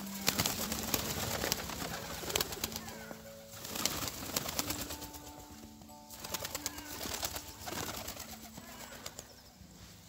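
A flock of feral pigeons feeding on snow: bursts of wing flaps with small clicks and rustles, over soft background music of long held notes. The flock sounds thin out and grow fainter near the end.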